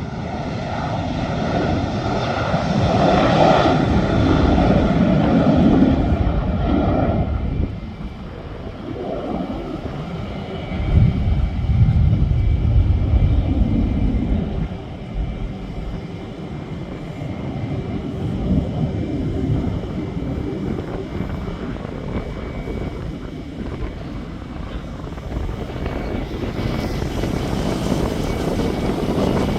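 Airliner jet engines running at high power during a takeoff, a loud steady rumble with a whine that swells over the first few seconds, eases, and swells again about eleven seconds in before settling lower.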